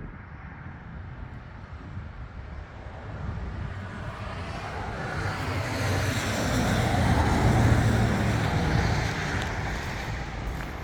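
Tracked skid steer's diesel engine running, growing louder to a peak about two-thirds of the way through and then easing off.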